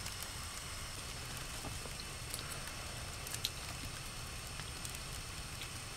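Wood-burning tent stove crackling faintly over a steady low hiss, with a few light clicks.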